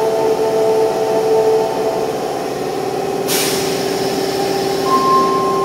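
Subway train standing at the platform with a steady electrical hum. About three seconds in comes a short burst of air hiss, and near the end a brief steady high beep.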